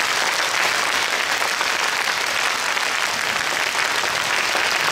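Audience clapping steadily, applause only with no shouts or voices, given as a clap vote that is measured to score a contestant.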